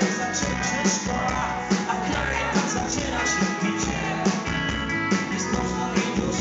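Live rock band playing, with electric bass, electric guitars and a drum kit, recorded on a phone in the audience.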